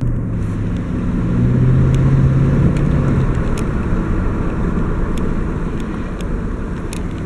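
A 5.3-litre V8 pickup engine running while the truck is driven, its low hum pulling harder for the first three seconds and then easing off.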